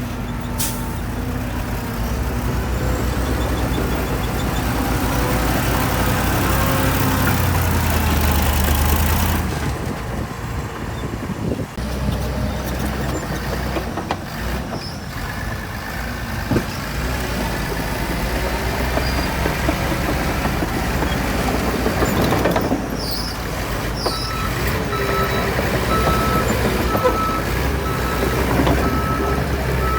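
Heavy diesel earthmoving machinery running and working, the engine note rising and falling with load. About three-quarters of the way through, a reversing alarm begins beeping at an even pace, roughly once a second.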